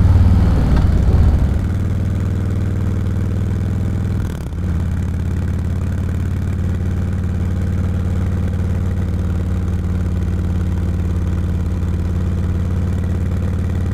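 Touring motorcycle engine running steadily as it rides uphill, with a brief dip in the engine sound about four and a half seconds in.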